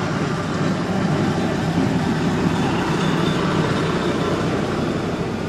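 Steady low rumble of a vehicle engine, growing a little louder in the middle and easing off near the end.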